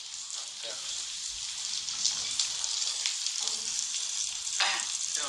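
Shrimp and meat sizzling on a hot griddle plate: a steady crackling hiss.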